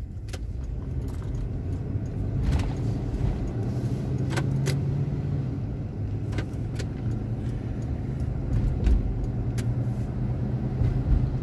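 Inside a moving car's cabin: a steady low engine and road drone, with several light clicks and rattles scattered through it.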